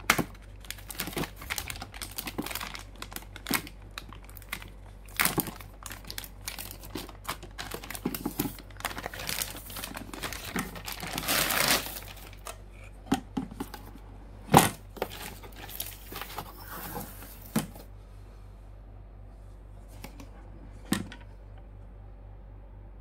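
Plastic anti-static bag crinkling and crackling as it is peeled off a motherboard, with a longer rustle as it comes free. A few sharp knocks follow as the bare board is lifted and handled, the loudest about two-thirds of the way in; then only an occasional light tap.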